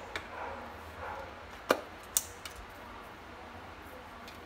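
A few sharp knocks and clicks of kitchen utensils or crockery, the two loudest close together a little under two seconds in, over a faint steady low hum.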